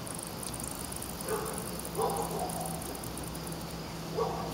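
Dog barking a few times: short barks about a second in, at two seconds and again near the end.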